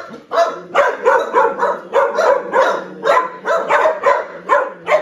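A dog barking over and over in quick succession, about three barks a second.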